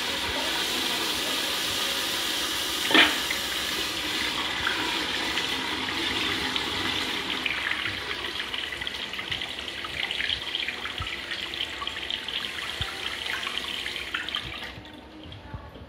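A LIXIL INAX tankless toilet flushing: water rushes steadily into the bowl, growing choppier and more splashy in the second half, then fades out just before the end. A single sharp click comes about three seconds in.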